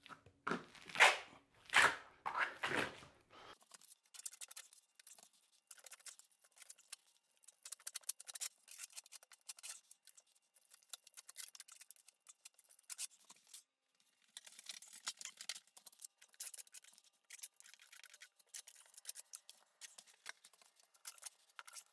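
A plastering trowel scraping over wet plaster on a ceiling patch in many short, scratchy strokes. The first few strokes are louder and fuller; the rest are thin and light.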